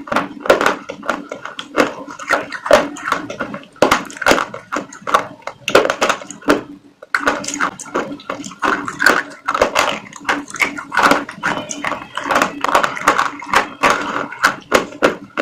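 Close-miked chewing of crunchy food: a rapid, irregular run of crisp crunches, with a brief pause about seven seconds in.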